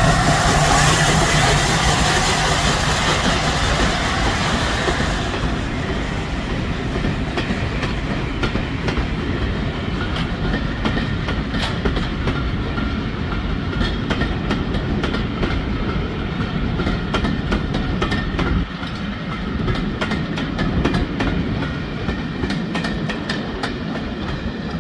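LNER A4 Pacific steam locomotive passing with a loud hiss of steam for about the first five seconds, then its train of coaches rolling past, wheels clicking steadily over the rail joints.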